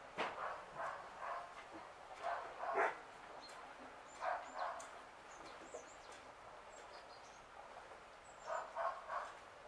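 A dog barking repeatedly in short runs of two to four barks, with small birds chirping faintly in between.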